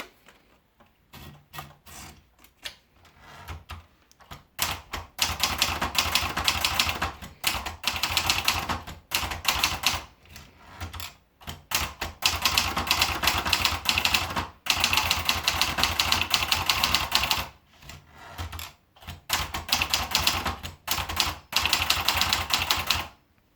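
Hermes Baby portable manual typewriter being typed on: a few separate keystrokes at first, then fast runs of typing in several bursts with short pauses between.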